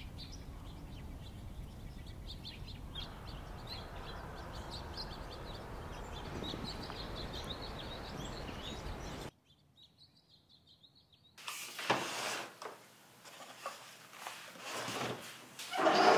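Steady outdoor background noise with small birds chirping. It cuts off about nine seconds in to near silence. Then come indoor rubbing and knocking sounds, and near the end the loudest sound: a wooden dresser drawer being pulled open.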